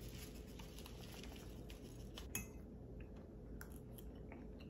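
Faint clinks and scrapes of a fork against a ceramic bowl while eating, with one sharper click about halfway through.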